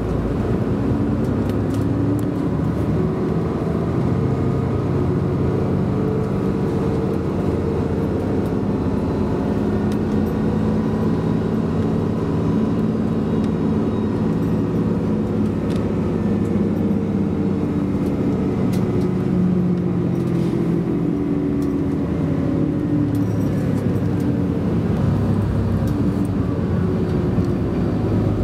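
Airport apron bus running and driving, heard from inside its cabin: a steady engine drone whose pitch rises and falls slowly as the bus speeds up and slows on the apron roads.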